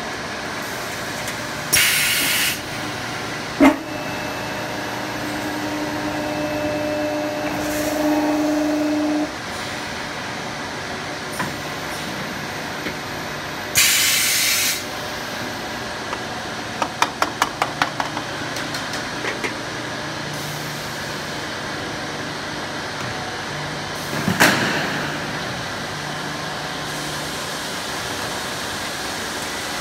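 Pneumatic welding machine for PE sprinkler-irrigation pipe working through its cycle over a steady workshop drone. There are two short, sharp air hisses, about two seconds in and again about fourteen seconds in, and a click soon after the first one. A steady hum runs from about four to nine seconds in, then a run of about ten quick clicks, and a single knock near twenty-four seconds.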